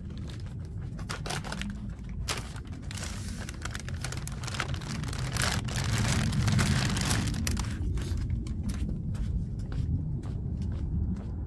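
Plastic grocery bags rustling and crinkling as they are handled and carried, with crunching steps on landscaping rocks; the rustling is densest and loudest in the middle.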